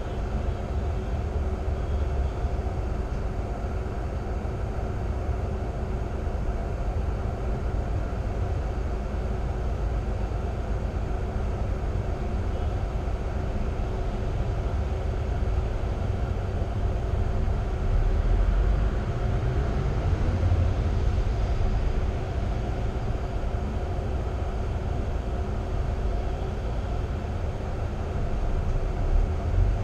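Diesel engine of a stationary double-decker city bus idling, heard from inside the upper deck: a steady low rumble with a faint steady hum.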